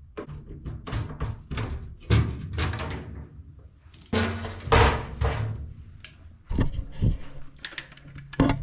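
A series of knocks and clunks from the sheet-metal access panel of an Amana 90% gas furnace being pulled off and handled, with a few heavier thuds midway and near the end.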